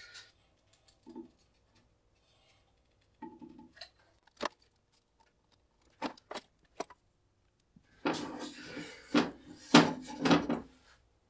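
A few small handling clicks and taps, then from about eight seconds in a run of knocks and scrapes as a split log section with hot-glued shims is set down and rocked on the table saw's metal top, a check that it now sits flat.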